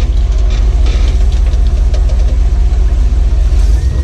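Jeep Wrangler engine running, loud and low-pitched, with scattered clicks and knocks in the first second and a half.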